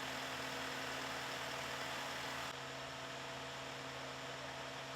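Steady low hum with a few fixed tones over faint hiss, dropping slightly in level about two and a half seconds in.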